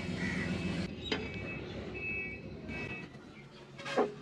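Steady low vehicle rumble that fades out about a second in, with short high beeps repeating in the background, then near the end two sharp metallic clanks from the bare cast gearbox housing being shifted on wooden boards.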